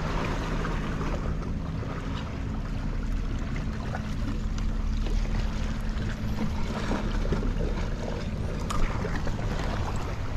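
Steady low drone of a boat engine running on the water, with low wind rumble on the microphone and a few faint clicks.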